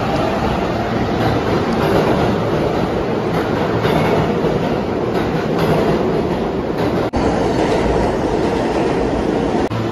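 A train rolling on rails: a steady rumble with clickety-clack from the wheels, cutting out briefly about seven seconds in.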